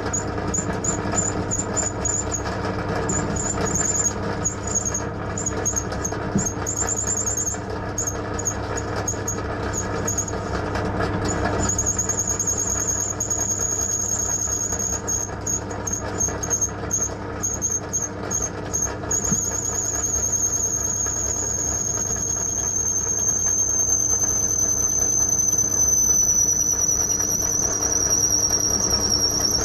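Benchtop drill press running, its twist bit cutting into knife steel with cutting oil and giving a high squeal over the motor's steady hum. The squeal comes in short pulses for the first dozen seconds, then holds steady and slowly drops in pitch near the end.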